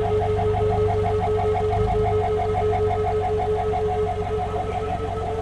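A vehicle engine idling steadily, with a fast, even pulse.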